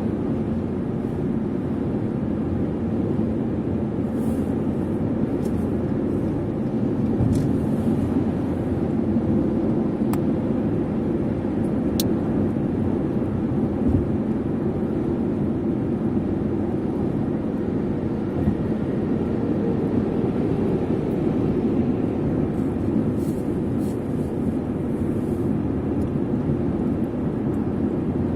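Steady road and engine noise inside a car's cabin at highway speed, with the windows closed.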